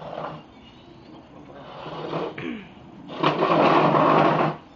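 Wooden chair being turned and dragged on a concrete patio, its legs scraping loudly for about a second and a half near the end.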